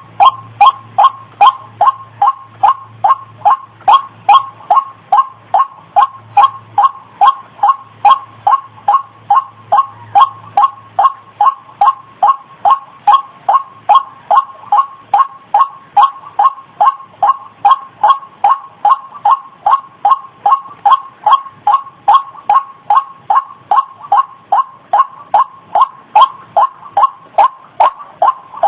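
White-breasted waterhen calling, a monotonous 'kru-ok' repeated steadily about two to three times a second, played from a recording used as a trapping lure. A faint low electrical hum sits under the calls for the first third.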